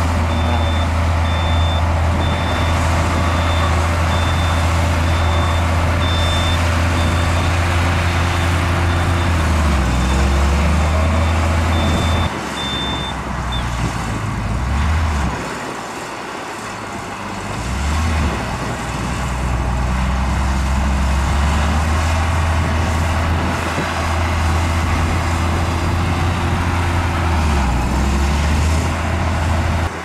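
Heavy diesel earthmoving machinery running hard, with a reversing alarm beeping at a steady rate for roughly the first dozen seconds. About halfway through the engine throttles down to a low idle for a few seconds, then picks up again.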